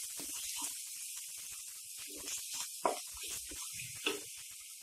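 Ginger-garlic-green-chilli paste and curry leaves frying in hot oil in a non-stick pan: a steady sizzling hiss, with the spatula scraping and knocking against the pan as it is stirred.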